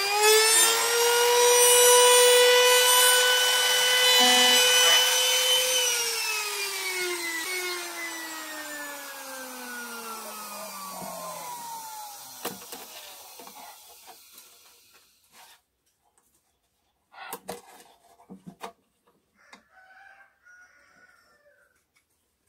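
Compact electric trim router running at a steady high whine while routing the truss rod channel in a mahogany guitar neck. About six seconds in it is switched off, and the whine falls in pitch as it spins down, fading out over several seconds. A few faint knocks follow from the wood being handled.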